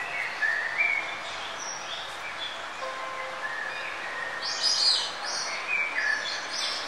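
Birds chirping and singing in short whistled phrases over a steady hiss, with a quick cluster of chirps about four and a half seconds in the loudest.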